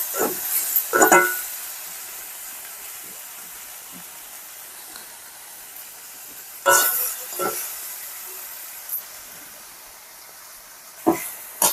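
Goat-skin pieces frying with spice powders in hot oil: a steady sizzle. A spoon scrapes and knocks against the pan a few times, near the start, about seven seconds in and near the end. This is the masala-frying stage before water is added.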